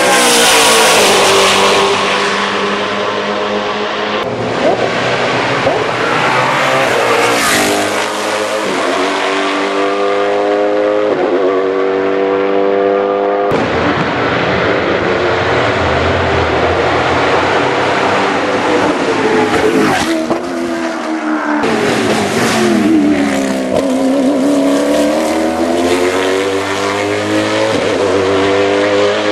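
Matech Ford GT GT1 race car's 5.5-litre Ford V8 at full throttle, its pitch climbing and dropping back at several quick upshifts. After an abrupt change about halfway, the pitch falls as it brakes and downshifts for a corner, then rises again as it accelerates out.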